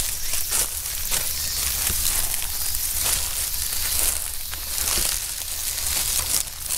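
Dry fallen leaves and pine needles crunching and rustling underfoot, a dense run of small crackles and snaps.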